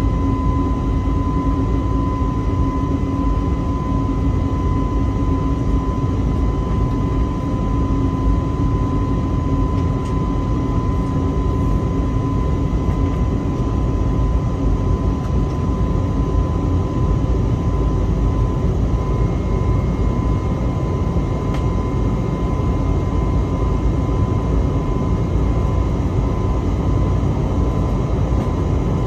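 Cabin noise of an Airbus A321neo climbing after takeoff: the steady drone of its CFM LEAP-1A turbofan engines and the rushing airflow, with a thin steady high tone running through it.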